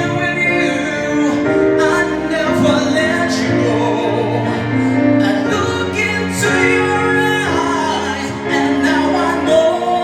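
A solo singer holding long, sliding notes of a slow ballad over a backing track, through a microphone and PA system during a sound check.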